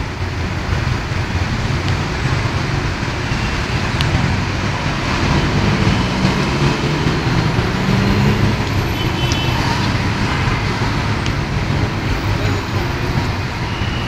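Steady road traffic: car engines running and vehicles passing close by at low speed.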